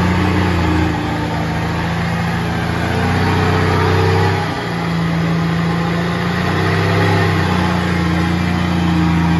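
Engine of a modified 4x4 challenge truck running under load as it crawls through a muddy rut, revving in surges, with a brief dip about halfway through before it builds again.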